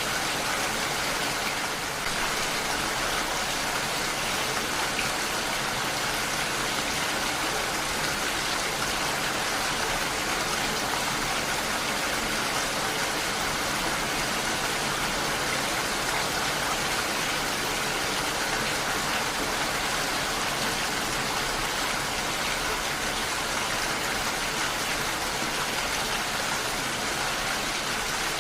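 Heavy rain falling steadily: a dense, even hiss of drops with no breaks or separate hits.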